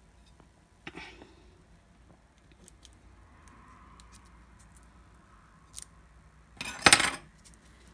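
A kitchen knife being handled against a metal cake tin on a countertop: a sharp click about a second in, a faint scraping in the middle, and a brief loud metallic clatter near the end.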